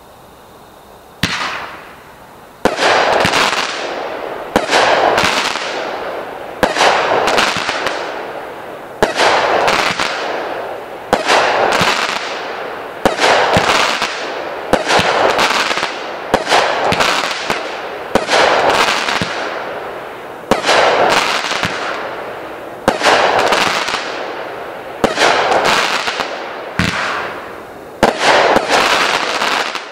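Aerial fireworks bursting one after another, about every two seconds, each a sudden bang followed by a crackling tail that fades away.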